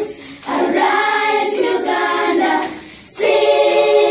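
A children's choir singing a gospel song: two long sung phrases with held notes, with a short break between them just before the three-second mark.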